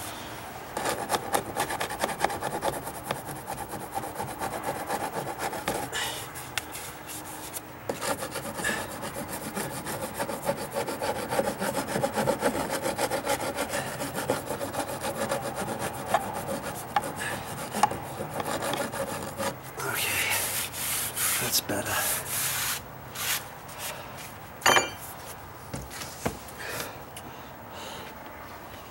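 A hand file rasping rapidly back and forth against a weathered wooden stair tread, working off loose paint. The strokes run steadily for most of the time and then come in shorter, sharper bursts near the end.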